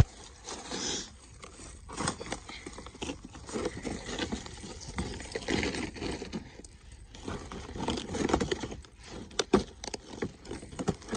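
Dry bark and leaf litter being handled and shifted: irregular crackling, scraping and rustling as pieces of bark are laid over a hidden dog toy.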